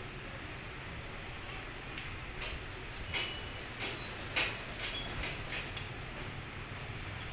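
Large tailoring scissors snipping through folded cotton blouse cloth: a run of short, sharp clicks of the blades, irregular and about a dozen in all. The series ends with one louder click as the scissors are laid down on the tile floor.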